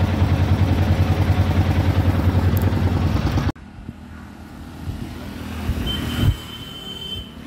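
A vehicle engine idling close by, a loud, fast, steady low throb that cuts off abruptly a little past three seconds in. After that there is a quieter outdoor background, with a thump and a brief thin high tone near the end.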